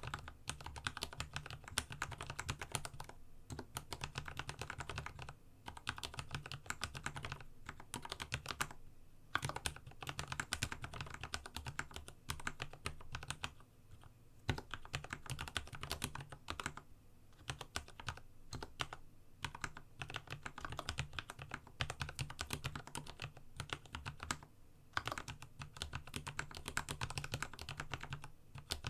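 Fast, continuous typing on a Dygma Raise split mechanical keyboard with linear Cherry MX Red switches lubed with a Krytox 105 and 205g0 mix. A steady stream of key strikes and bottom-outs, broken by a few short pauses.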